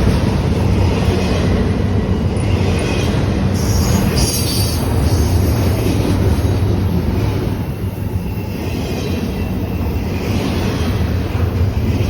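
Intermodal freight train rolling past on the rails: a steady, loud, low rumble of wheels and cars.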